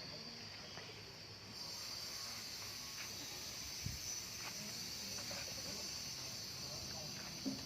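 Insects droning steadily at a high pitch, setting in about one and a half seconds in, with a few faint clicks and knocks.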